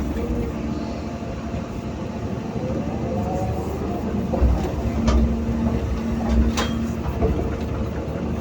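Hydraulic excavator's diesel engine running steadily under load, with a rising hydraulic whine and several sharp knocks a few seconds in.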